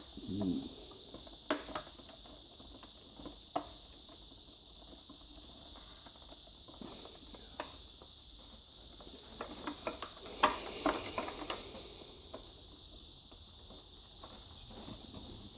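Scattered clicks and taps of a Dyson DC23 vacuum cleaner's plastic parts being handled during disassembly, with a busier run of clicks about ten to eleven seconds in.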